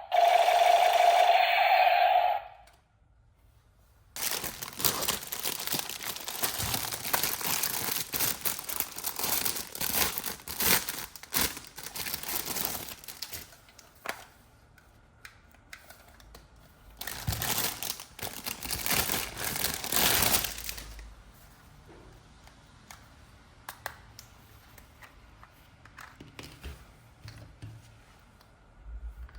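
A steady tone for about the first two seconds, then toy packaging being crinkled and torn open in two long spells of crackling, the louder one near two-thirds of the way in, with a few small clicks afterward.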